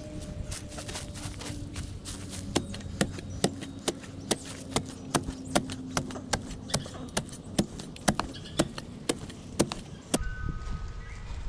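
Sharp knocks repeating at about two a second over a low background rumble, stopping about ten seconds in, where the sound changes abruptly to a low rumble.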